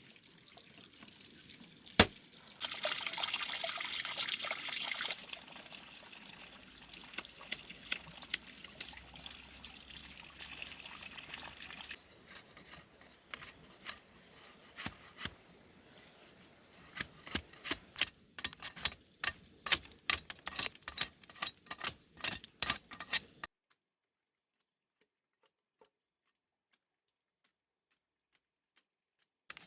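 Water pouring for a couple of seconds, then a quiet wash, then a quickening run of sharp knocks or taps that stops suddenly.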